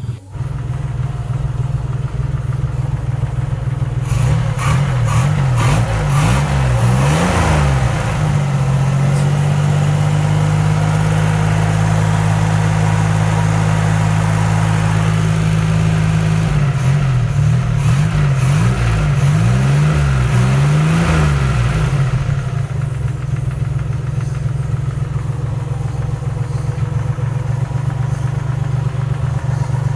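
Daihatsu Hijet 1000 engine idling, then revved up and down several times, held at raised revs for several seconds, blipped a few more times and let settle back to idle, running after sitting unused for two months.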